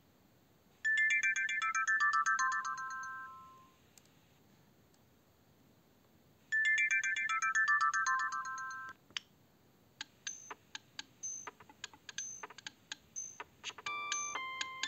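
Siemens Gigaset C595 cordless phone handset playing a ringtone: a short falling run of clear electronic tones, sounding twice. A string of sharp clicks with short high beeps follows, and a different, busier ringtone melody begins near the end.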